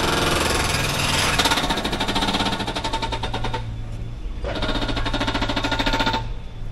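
Jackhammer hammering in two bursts of about two seconds each, with a short pause between, over the steady low hum of a running engine.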